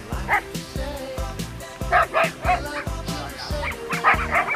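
Dogs barking in short repeated bursts, several times in quick succession about halfway through and again near the end, over steady background music.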